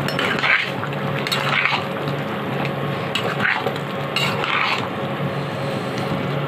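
A flat metal spatula stirring chunks of vegetables through a thick curry in a frying pan, scraping against the pan in several separate strokes. Under the strokes runs a steady simmering hiss from the pan.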